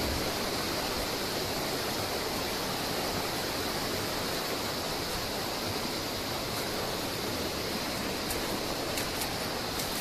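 Steady rush of falling water from a waterfall, an even, unbroken hiss of water noise.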